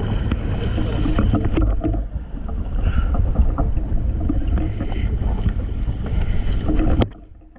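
Small boat under way: a steady low engine rumble with wind buffeting the microphone, cutting off sharply near the end.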